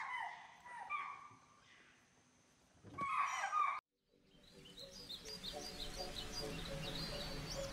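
Loud animal calls in three bouts in the forest, the last ending abruptly. After a moment of silence, music fades in with bird chirps laid over it.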